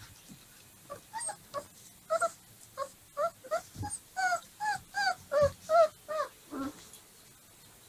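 Young Dogo Argentino puppies whimpering: a run of about fifteen short, high, squeaky cries, two or three a second, each rising and falling in pitch. They stop about a second before the end. A couple of soft low thumps fall among them.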